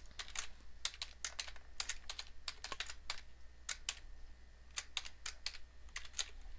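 Typing on a computer keyboard: an irregular run of quick keystroke clicks.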